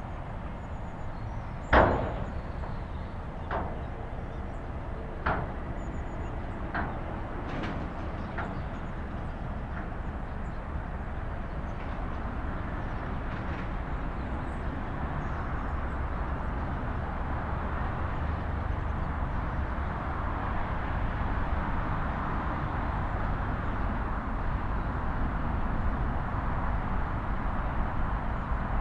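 Steady outdoor rumble and hiss with a sharp bang about two seconds in, followed by five fainter knocks over the next several seconds; the rumble grows slightly louder toward the end.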